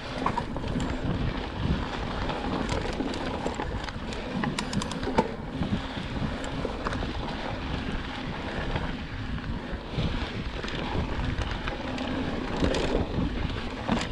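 Wind buffeting the microphone of a camera riding on a mountain bike, over the rumble and rattle of the bike rolling along a dirt trail, with scattered sharp clicks from bumps.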